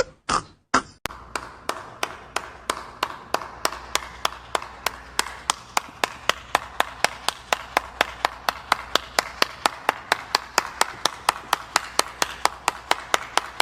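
One person clapping steadily, about four sharp claps a second, over a faint low hum.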